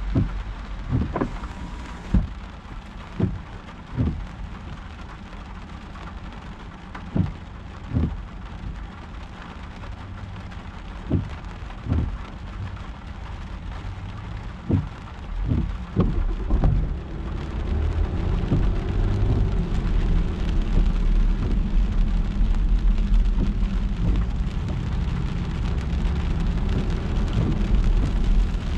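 Rain on a car being driven through city streets, with short thumps, mostly in pairs, recurring every few seconds. From a little past halfway a steady low rumble of the car on the wet road grows louder as it picks up speed.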